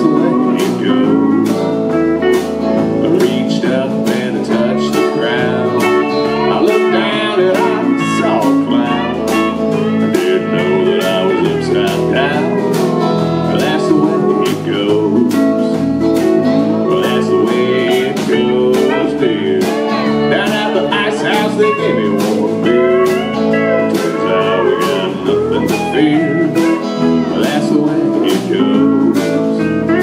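Live country-blues band playing: pedal steel guitar, electric guitar, bass guitar and drums, over a steady drum beat.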